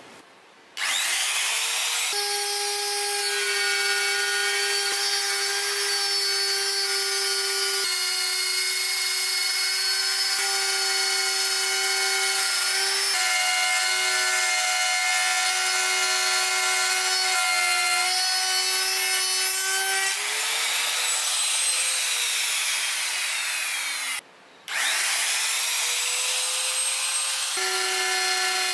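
Makita trim router with a dovetail bit cutting a groove in plywood. Its motor spins up with a rising whine, then runs steadily under load with a high whine whose pitch shifts slightly as the cut goes. After a brief break near the end it spins up again and settles back into cutting.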